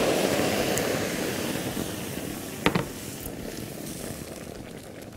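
Meat broth being poured through a strainer into a pot: a steady rush of splashing liquid that tapers off, with a sharp clink nearly three seconds in.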